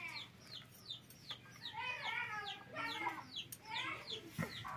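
Chickens clucking, with a run of short, high, falling chirps several times a second and louder clucking calls about two and three seconds in.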